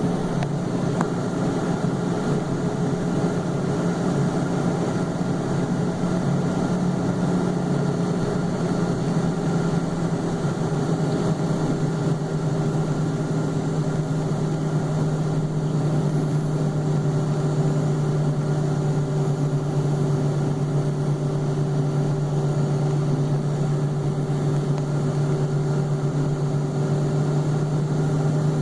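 Cessna 560 Citation V jet: a steady engine and airflow drone with a strong low hum and a fainter higher tone that both dip slightly in pitch about a third of the way in.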